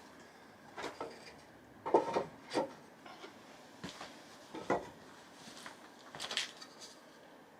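Irregular knocks and clatters of objects being handled and set down, wood and metal, about seven in all with short gaps between.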